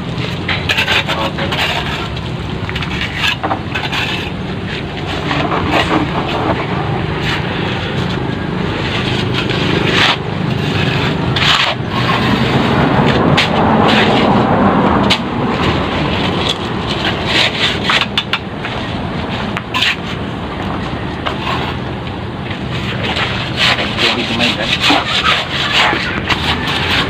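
Steel trowels scraping and knocking as mortar is spread on concrete hollow blocks, in many short irregular scrapes and taps, over a steady low drone and voices.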